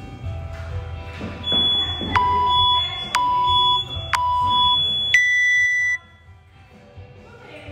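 Workout timer countdown: three short beeps about a second apart, then a longer, higher-pitched beep that marks the start of the workout, over background music.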